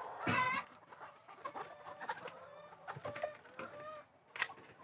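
Flock of laying hens clucking, with one louder squawk at the very start and scattered short calls after it.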